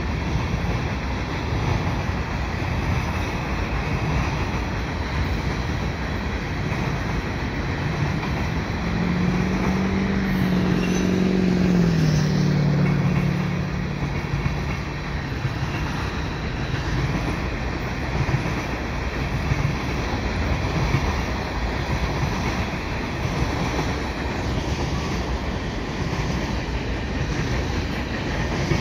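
Freight cars of a CN mixed freight rolling past, a steady rumble of steel wheels on rail. About a third of the way in, a low hum rises over it and slides down in pitch over several seconds.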